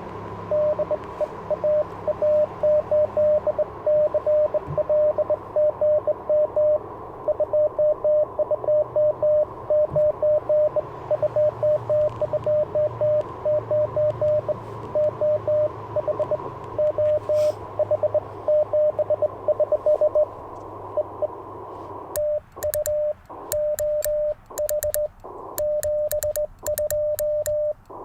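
Morse code from an Icom IC-705 ham transceiver. For the first twenty seconds or so a keyed CW tone comes over band hiss with a steady whistle underneath, typical of a station being received. From about 22 s the operator sends on a cootie (sideswiper) key: the radio's sidetone, with the key's contacts clicking, and the band noise cut off between characters while transmitting.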